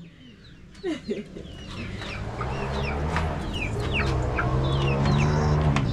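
Chickens clucking, with short high calls falling in pitch repeated throughout. A low steady hum grows louder from about two seconds in.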